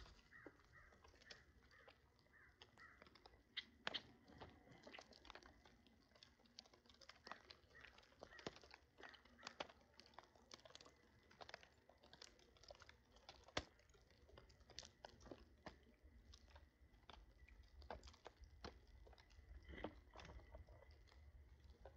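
Birds eating: faint, irregular clicks and crunches of beaks pecking and crunching food, several a second, with a few sharper pecks.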